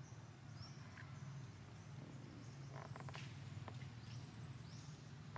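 Faint outdoor background: a steady low hum with a few short high chirps, and a cluster of soft clicks about three seconds in.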